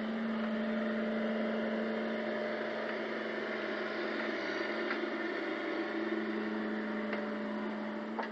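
Small excavator's engine running steadily with a steady hum, with a few faint clicks.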